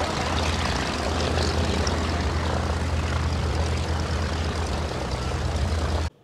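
Bristol M1C's Le Rhône rotary engine running steadily as the monoplane taxis on grass, propeller whirring. The sound cuts off suddenly near the end.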